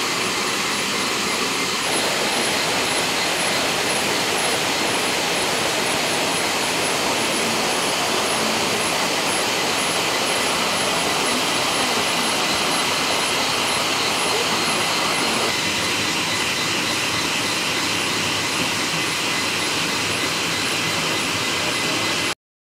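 A steady rushing noise with a faint, high, pulsing insect trill above it; it cuts off abruptly near the end.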